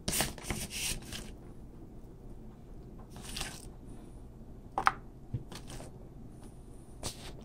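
Chopped onions being scooped from a plastic tub and dropped onto a foil baking pan: a few short scrapes and rustles, with a couple of light clicks near the middle and end.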